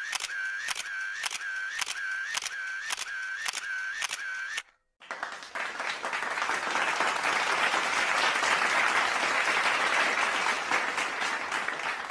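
Sound-effect clips: a run of camera-shutter clicks, about three a second, each with a short electronic tone, lasting four to five seconds. After a brief pause a crowd cheers and applauds, swelling and then fading.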